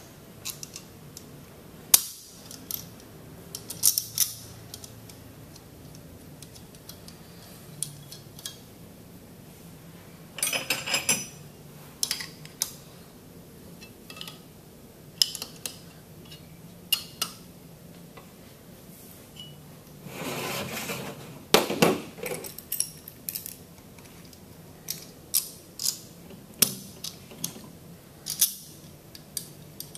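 Small metal tubing and fittings being handled and fitted onto a stainless steel pneumatic pump motor: scattered light metallic clicks and clinks, with two short scraping rubs about ten and twenty seconds in.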